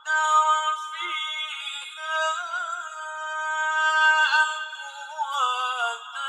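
A male voice chanting the Quran in slow, melodic recitation. It draws out long held notes with wavering ornaments, and dips sharply in pitch about four seconds in.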